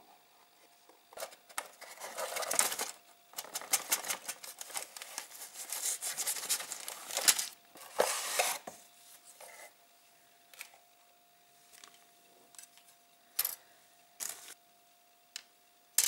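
Plastic model kit being unpacked: the cardboard box and the plastic bag of yellow sprues handled with dense crinkling and rustling for about seven seconds. After that come a few light taps and clicks as the plastic parts are set down.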